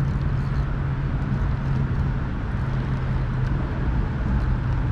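Steady drone of traffic on an interstate bridge, with a constant low hum underneath and a few faint ticks.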